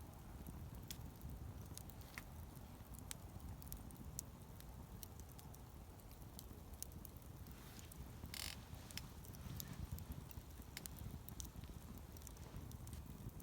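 Wood campfire burning, with irregular small crackles and pops over a low rumble of flame, and one louder crackle a little past eight seconds in.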